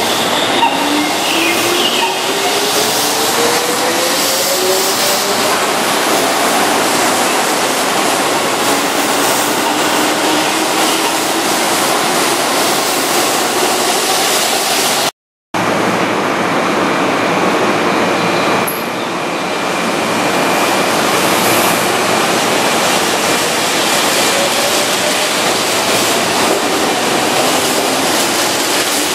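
Keihan 2600-series electric train pulling away from a station platform: the motor whine rises steadily in pitch as it accelerates, over wheel and rail noise. It happens twice, in two joined takes, with a brief silent cut about halfway through.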